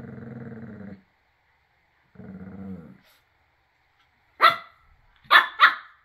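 Small dog growling in two low rumbling spells, then barking sharply three times, the loudest sounds; the growls and barks come during play between two dogs.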